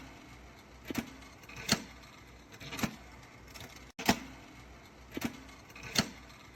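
A series of sharp clicks and clatters of small hard objects being handled, about one a second.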